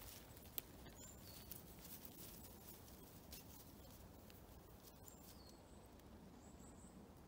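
Near-quiet forest ambience with a few faint, high, short bird chirps, two of them falling in pitch, and scattered soft ticks.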